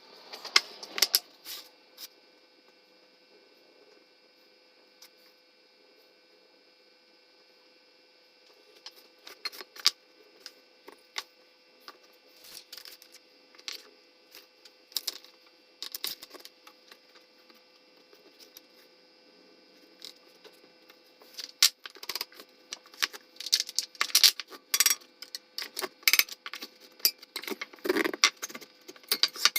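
Picture-frame assembly at four times speed: scattered sharp clicks and knocks of wood pieces and hand tools being handled, a few at first, sparse for a while, then coming thick and fast in the last third, over a faint steady hum.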